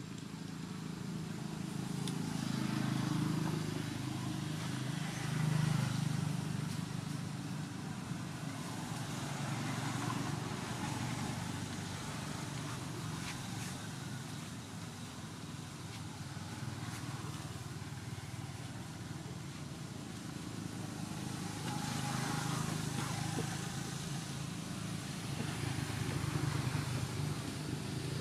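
Low engine rumble of passing road vehicles, swelling a few seconds in and again near the end.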